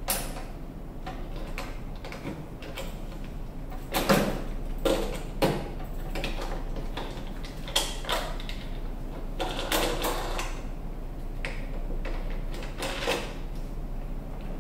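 Scattered clicks, knocks and rattles from hands working a petrol lawnmower's handle and control cables, with a cluster of sharper knocks about four to five seconds in. A steady low hum runs underneath.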